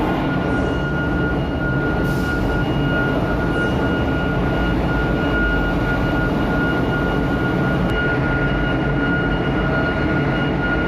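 Heavy diesel truck engines running steadily, a low rumble with a thin, steady high-pitched whine over it.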